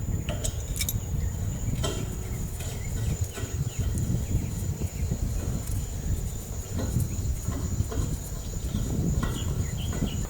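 Outdoor ambience: a steady high-pitched insect trill over a low rumble of wind on the microphone, with scattered faint clicks and knocks.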